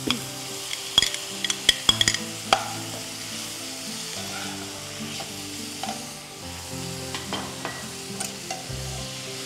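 Raw country chicken pieces hitting hot oil with fried onions, tomatoes and green chillies in a nonstick kadai, sizzling steadily as they are stirred in. A quick run of sharp metal clinks and knocks from the utensils against the pan and bowl comes about one to two and a half seconds in.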